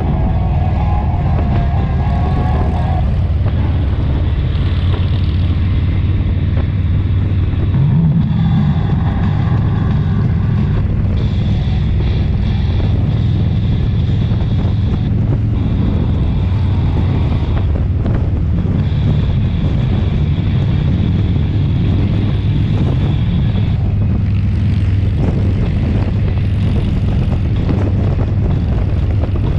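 Motorcycle riding at a steady cruise: constant low engine and road rumble with heavy wind buffeting on the microphone.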